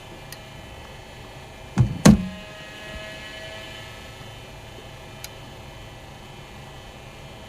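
Cricket ball delivered by a bowling machine and met by the bat: two sharp knocks about a quarter second apart, the second louder and ringing briefly. A steady hum runs underneath.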